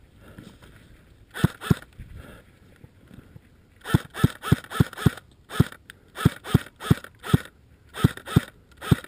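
Airsoft AK-style Krinkov rifle firing single shots: two quick shots, then, after a pause, a steady string of shots at about three a second.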